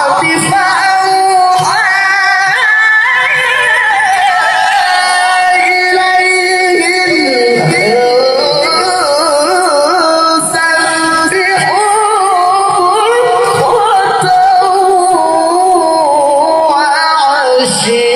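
A male qari reciting the Quran in tilawah style, singing a high, melismatic line with long held notes and quick trilled ornaments.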